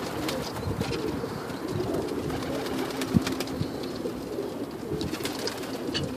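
A loft full of domestic pigeons cooing together, a continuous low burbling, with scattered sharp clicks and taps, one louder about three seconds in.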